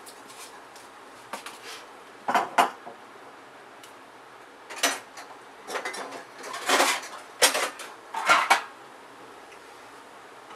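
Metal kitchenware clattering: a series of short, irregular clinks and knocks, the loudest in the second half.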